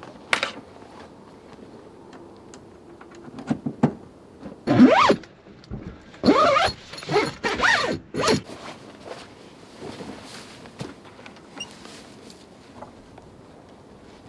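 Zips on a roof-top tent's fabric door and window panels being pulled open in several quick runs, after a single sharp click near the start.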